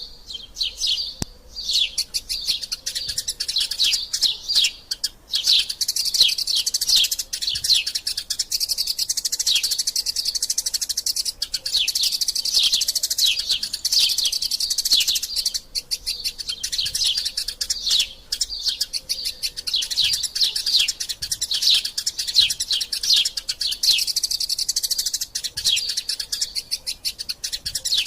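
Eurasian tree sparrows squabbling in a fast, nearly continuous chatter of short, high chirps that slide downward, with a few brief pauses.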